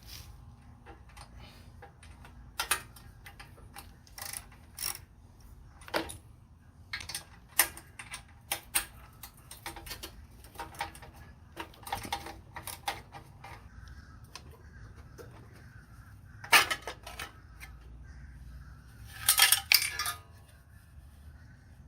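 Irregular metallic clicks and clinks of tools and small metal parts being handled. One sharp knock comes about three-quarters through and a quick cluster of clinks near the end.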